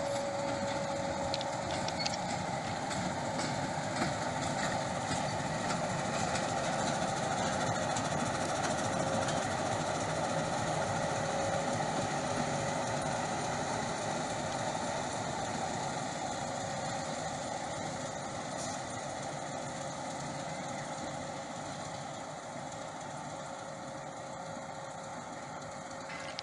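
Meter-gauge diesel locomotive engine running as it shunts past, a steady engine note with a held tone; it grows a little louder toward the middle and then gradually fades as the locomotive draws away.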